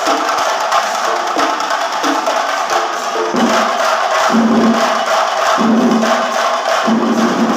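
Chenda drums of a Kerala chenda melam beaten in a fast, dense rhythm, with a large crowd cheering and shouting along. From about three seconds in, long low held notes sound again and again over the drumming.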